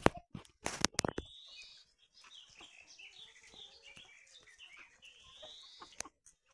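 A few loud, sharp knocks in the first second or so, then a steady run of short, high peeps and chirps from young chickens drinking round a metal water bowl.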